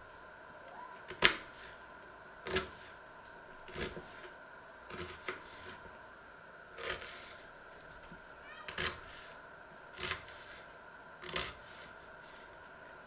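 Kitchen knife slicing through a halved onion and knocking on a wooden chopping board: about eight slow single cuts, one every second or two, the first the loudest.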